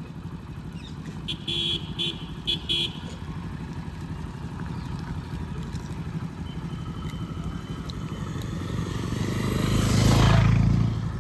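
Road traffic: a motor vehicle engine running steadily, with three short horn beeps about a second and a half in, and another vehicle passing close, loudest near the end.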